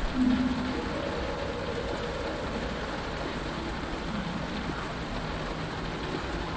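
Steady rain falling on a cockpit canopy, with a short low-pitched animal-like call just after the start and a fainter one about four seconds in.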